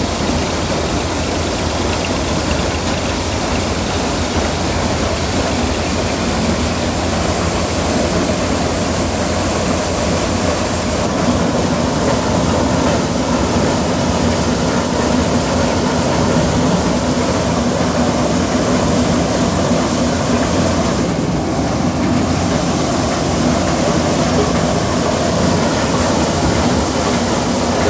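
Tractor-driven maize sheller-dehusker threshing maize cobs, with the Farmtrac tractor's engine running under load: a loud, steady mechanical din of the threshing drum and drives. A steady hum grows stronger partway through.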